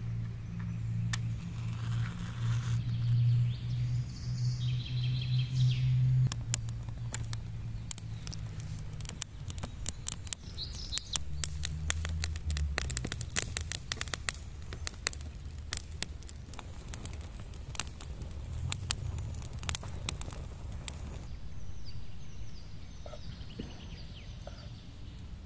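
Dry stick kindling crackling as a small wood fire catches, a rapid run of sharp snaps for most of its length, fading out near the end. Birds chirp in the background.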